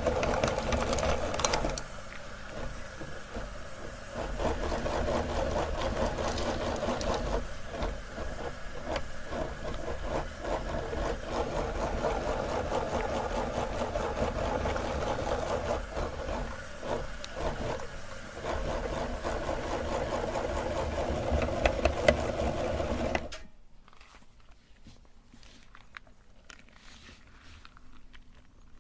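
Electric meat grinder running as it grinds soap, the motor's steady hum wavering in level, then switched off about 23 seconds in. Afterwards only faint small clicks and crinkling.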